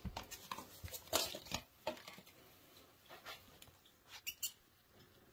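White mice scurrying and scratching over loose coconut-fibre bedding in a plastic tub, with irregular taps and scrapes. There is a brief cluster of louder clicks and scrapes near the end, as a bullfrog seizes one of the mice.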